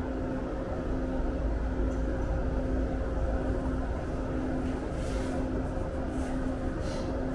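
Steady low mechanical hum: a constant drone with a held tone, with a few faint soft hisses about five to seven seconds in.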